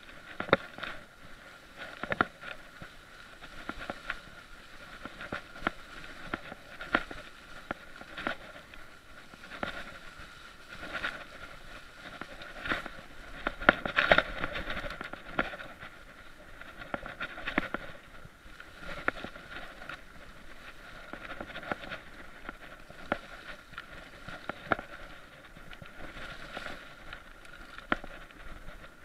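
Mountain bike rattling and clattering as it rolls over a rough, leaf-strewn dirt trail, with irregular sharp knocks from the bike over a steady rolling noise. The biggest jolts come about halfway through.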